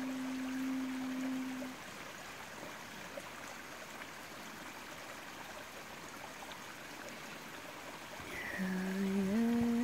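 Small woodland stream trickling, a steady even rush of water. A held low hummed note carries on from the start and stops just under two seconds in; near the end a hummed note comes in and climbs in small steps.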